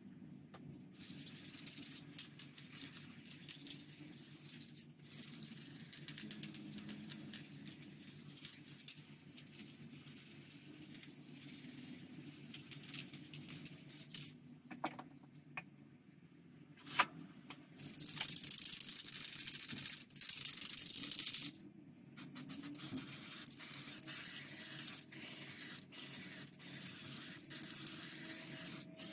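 Silver paint being sprayed onto model parts: a hiss that starts and stops in stretches, loudest for a few seconds about two-thirds of the way through, with small clicks between.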